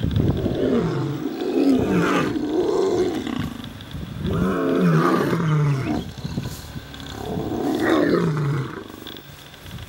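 Male African lions roaring: a series of deep calls, each falling in pitch, coming in three loud bouts about three seconds apart. This is a dominance display by older males.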